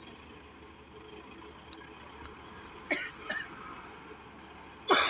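Heavy construction machinery running in a steady low drone, with two short sharp sounds about three seconds in and a louder sudden one near the end.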